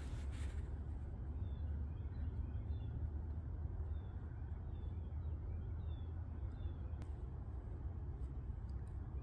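Outdoor ambience: a steady low rumble with faint, high bird chirps scattered through the first two-thirds, and a couple of light clicks near the end.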